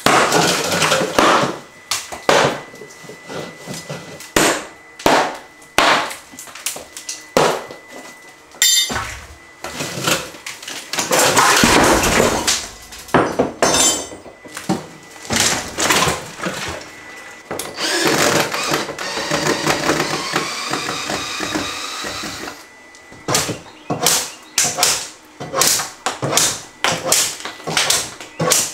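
Kitchen cabinets being torn out with a pry bar: a string of sharp knocks, bangs and cracks as wood and fasteners are pried loose, with two longer stretches of tearing and scraping, around twelve and twenty seconds in.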